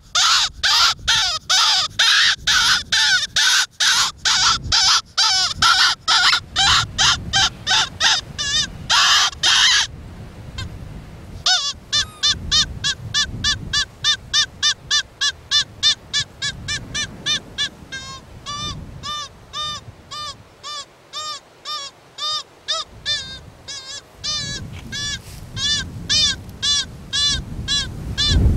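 Predator call for foxes squealing in short, rapid notes, about three a second: harsh and loud for the first ten seconds, then after a brief pause cleaner and a little softer.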